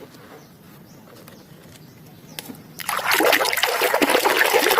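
Water splashing and spattering onto a muddy plastic toy as it is washed clean, starting suddenly about three seconds in after a quiet stretch.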